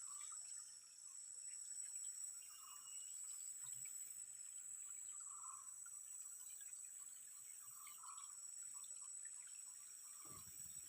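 Quiet riverside ambience: a steady high-pitched insect drone, with faint trickling water and soft recurring sounds underneath, and a brief low thump near the end.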